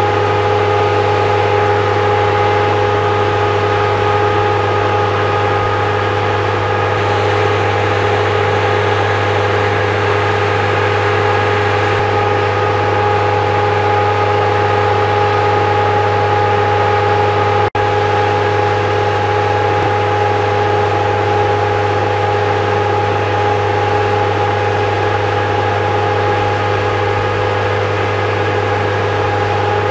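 An engine running at a steady speed, a drone that holds one unchanging pitch, with a brief dropout a little past halfway.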